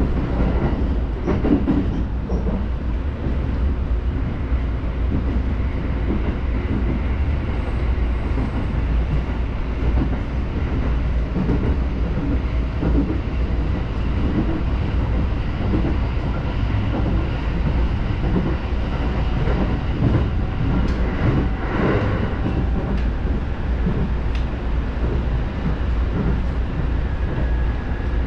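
JR East Musashino Line electric commuter train running at speed, heard from inside the carriage: a steady low rumble of wheels on rail with scattered clicks, a few stronger ones about two seconds in and again about two-thirds of the way through.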